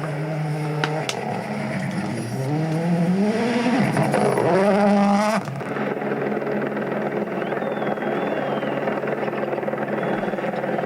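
Rally car engine revving hard, its pitch climbing repeatedly as it accelerates through the gears. About five seconds in it cuts off sharply, and a steadier engine sound follows.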